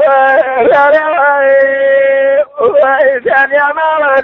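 A man singing long, held notes with bending ornaments between them, breaking off briefly about two and a half seconds in before starting a new phrase.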